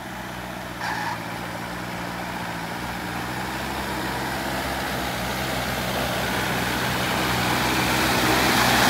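Modified Jeep's 2400 cc turbo engine running at a steady, even pitch as it drives through a flooded, muddy field, growing louder as it approaches. A rushing splash of water and mud from the tyres grows toward the end.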